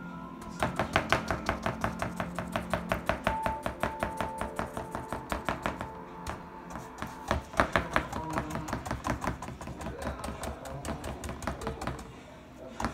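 Paintbrush dabbing glue-soaked paper towel down onto cardboard: quick rhythmic taps, about five a second, growing fainter in the last few seconds.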